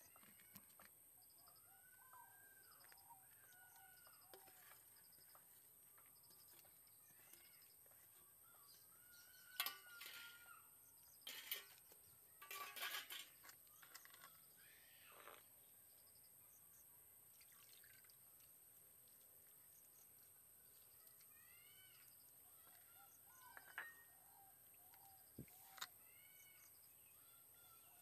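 Faint birdsong, short rising-and-falling calls repeated again and again, with a few brief splashing, squelching sounds in the middle from a hand squeezing and swishing through liquid in a plastic basin.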